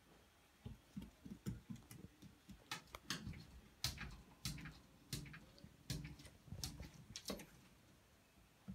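Golden retriever puppy's claws clicking on a hardwood floor and its paws tapping against a mirrored closet door: quiet, irregular light ticks and taps, a few a second.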